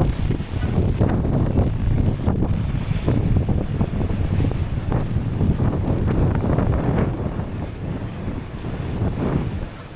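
Wind buffeting the microphone, a steady, uneven low rumble.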